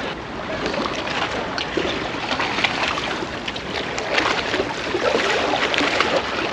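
Seawater lapping and splashing at the shore, with a steady wash and many small irregular splashes.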